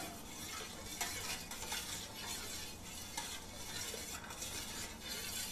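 Metal spoon stirring warm milk in a stainless steel container: faint swishing with a few light ticks of the spoon against the metal. The yogurt starter is being mixed into the milk to set curd.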